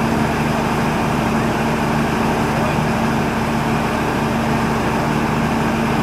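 Heavy earthmoving machine's diesel engine running steadily at a constant pitch.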